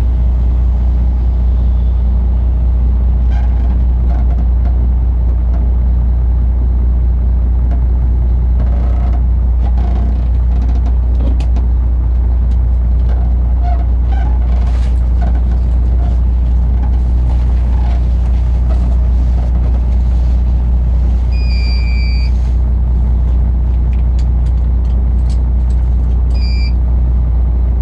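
Inland cargo barge's diesel engine running with a steady, deep rumble. A short, high electronic beep sounds about 22 seconds in and again near the end.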